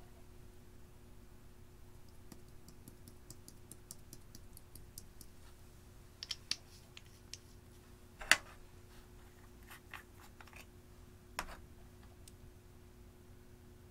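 Small clicks and taps from eyeshadow being handled over a glass dish: a run of fine, faint ticks, then a few sharper clicks, the loudest about eight seconds in.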